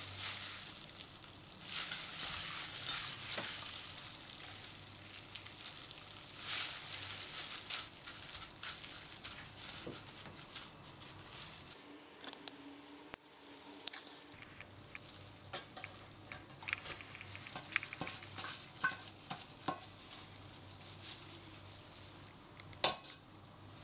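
Wet squelching and crackling of orange pulp being squeezed by hand in plastic disposable gloves in a stainless steel bowl, coming in surges. Later it goes quieter, with a few sharp clicks, the loudest near the end.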